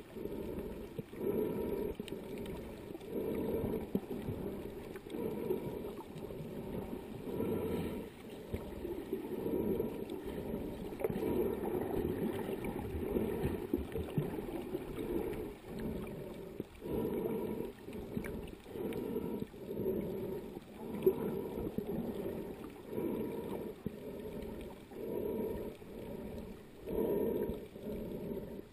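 Muffled underwater water noise, as heard by a camera held just below the surface, swelling and fading every second or two.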